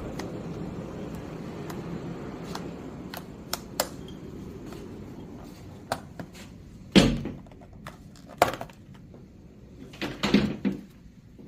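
A door or cabinet being handled: several light clicks and three heavier knocks, the loudest about seven seconds in and again near ten seconds, over a steady low rushing noise that fades away.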